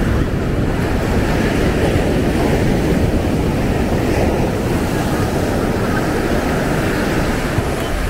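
Steady rush of ocean surf breaking on a sandy beach, with wind buffeting the microphone.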